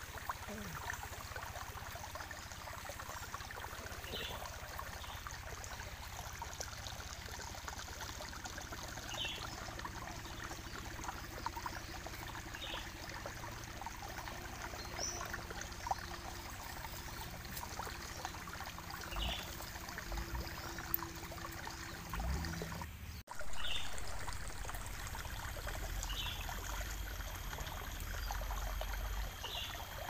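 Sparrow satay skewers grilling over wood embers: a steady fine sizzle and crackle, with now and then a sharper pop. Faint short high chirps recur every few seconds behind it.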